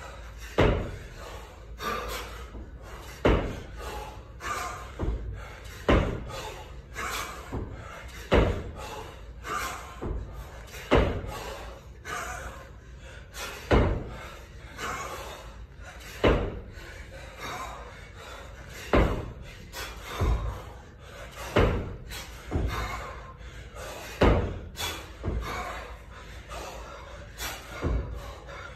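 Repeated kettlebell lifting reps: a sharp thud about every two and a half seconds, each followed by lighter knocks, as the bell and the lifter's body and feet land in a steady rhythm.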